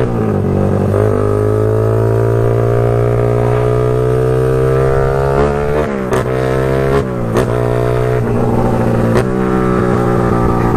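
Drag racing motorcycle engine revving hard. Its pitch climbs steadily for about five seconds, then drops and climbs again several times in quick sharp breaks.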